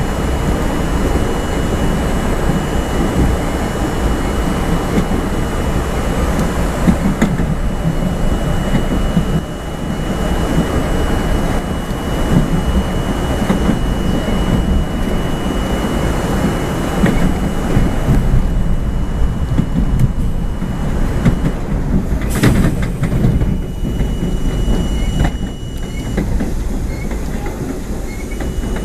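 New York City subway train running, heard from inside the front car: wheels rumbling and clattering on the rails, with a steady high tone that drops out late on. Near the end come two sharp knocks a few seconds apart.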